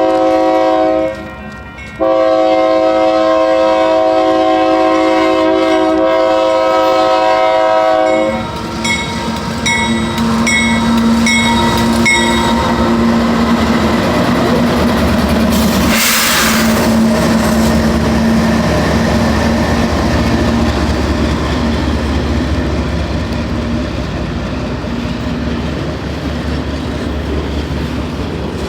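Union Pacific diesel locomotive's multi-chime air horn sounding one short blast and then a long blast of about six seconds. The train then rolls past with its engine running and wheels clacking over the rail joints, with a brief rush of noise about halfway through.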